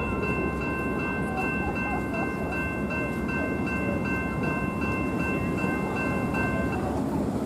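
A train rolling past with a steady low rumble, while a railroad crossing bell rings steadily and stops about seven seconds in.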